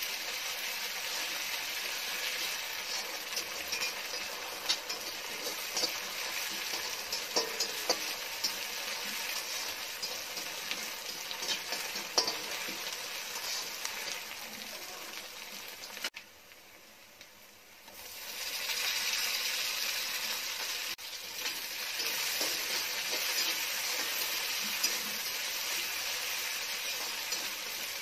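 Chopped onions and curry leaves sizzling in hot oil in an aluminium kadai, stirred with a metal spatula that clicks and scrapes against the pan. The sizzle drops away for a couple of seconds a little past the middle, then resumes.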